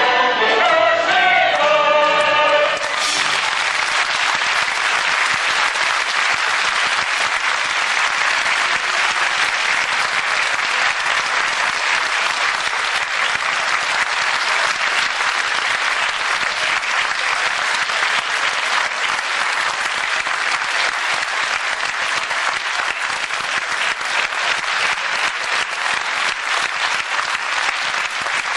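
Chorus and orchestra sing the closing chord of an operetta finale, cutting off about three seconds in; then a theatre audience applauds steadily.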